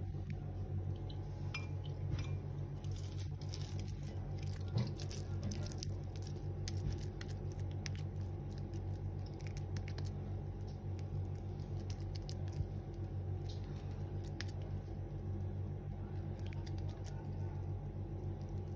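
Wet hands pressing and patting raw minced chicken mixture into flat nugget patties: soft squelching with small, scattered clicks. A steady low hum runs underneath.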